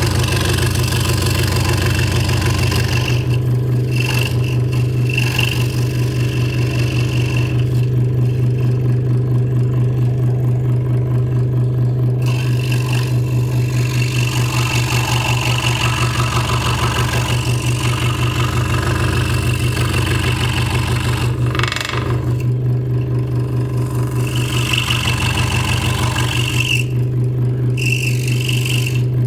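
Hegner Multicut 2S scroll saw running and cutting pierce work in a stacked wooden blank: a steady motor hum with the fast rhythmic pulse of the blade strokes, and a rasping cutting sound that comes and goes as the wood is fed.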